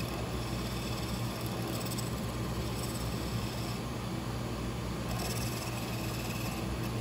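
Wood lathe running with a steady low hum while a turning tool cuts a spinning African Blackwood blank, giving an even scraping noise of the cut that comes and goes slightly.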